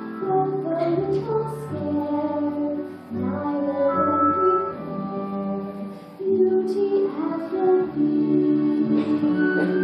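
Slow sung ballad: a solo voice holding long notes over musical accompaniment, as in a live musical-theatre song.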